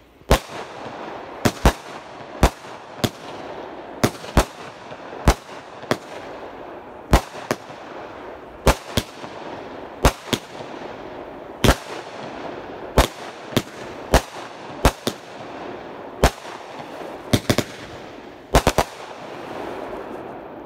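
Alone Megabanger 16-shot firework cake firing: sharp, loud bangs about every half second to second, some in quick pairs, over a steady hiss between them. The bangs stop shortly before the end.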